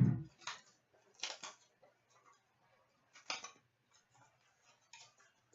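Hockey card box and packs being handled and opened: a low thump at the start, then several short scraping, rustling strokes of cardboard and wrapper.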